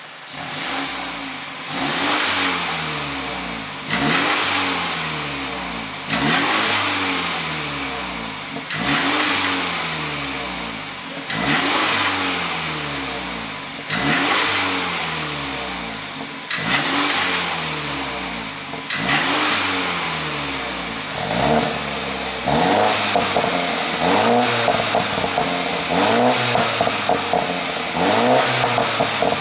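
BMW 330i's 2.0-litre turbocharged four-cylinder revved in sharp blips about every two and a half seconds, each rev dying away slowly while the exhaust crackles and pops on the overrun from an ECU pop-and-bang tune. In the last third the blips come quicker and shorter.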